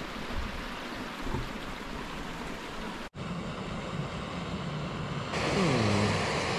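Steady rushing wind noise, then after a cut the hiss of a backpacking gas canister stove burning under a pot. The hiss gets suddenly louder about five seconds in.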